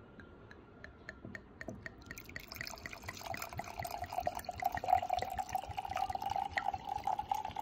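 Red wine poured from a bottle into a glass: a few faint drips at first, then from about two seconds in a steady pour that fills the glass.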